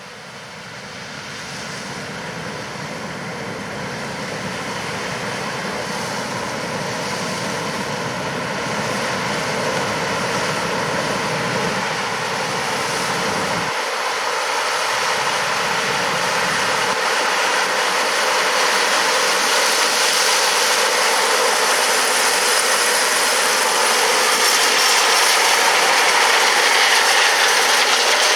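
John Deere S680 combine harvester running as it harvests corn with its eight-row corn head: a steady machine noise with a mix of engine and drive whines that grows louder throughout.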